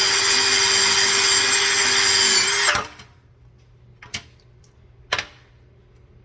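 Electric buffing wheel motor running steadily at speed while being loaded with polishing compound. It cuts off about three seconds in, and two short knocks follow a second apart.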